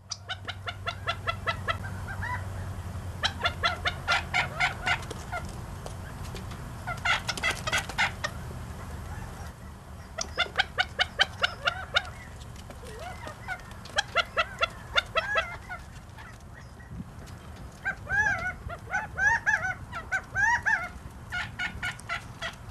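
A flock of California and Gambel's quail calling. Bursts of rapid clucking notes come every few seconds, and near the end there is a run of short rising-and-falling chip notes. A low hum sits under the first few seconds.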